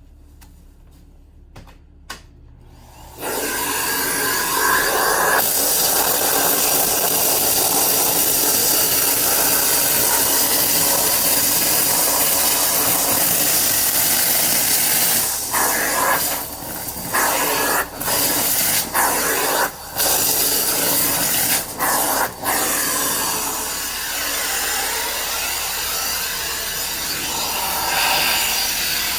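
Miele C2 canister vacuum running with its wand and a cleaning tool, a loud steady suction rush that starts abruptly about three seconds in. The tool rubs over surfaces, and the sound dips briefly several times in the middle.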